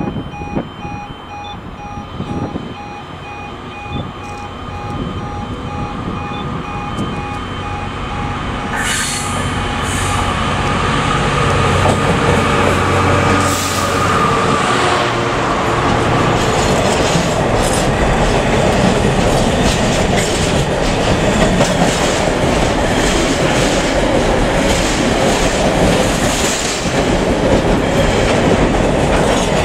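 Pulsing electronic alarm tones sound for the first several seconds. Then a diesel-hauled freight train comes closer, its engine growling low, and the wagons roll past with a steady, loud rumble and clickety-clack of wheels on the rails.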